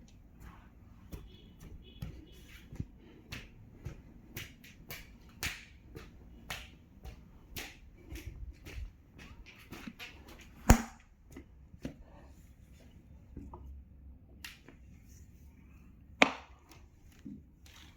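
Irregular light clicks and knocks, with a sharper, louder knock about eleven seconds in and another near sixteen seconds.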